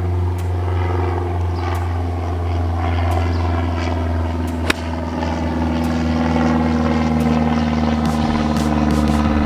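A single sharp crack of a golf club striking the ball on a tee shot, about halfway through, over a steady engine drone that slowly rises in pitch in the second half.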